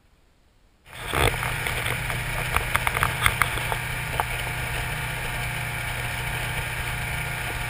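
Motorboat engine running steadily, with wind rushing over the microphone. The sound starts suddenly about a second in, after near silence, and a few light clicks come through in the middle.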